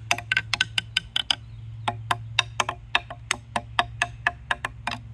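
Homemade xylophone of pine branch bars being played with a wooden drumstick: a quick run of dry wooden knocks at different pitches, a short pause about one and a half seconds in, then a steadier run of about four strikes a second.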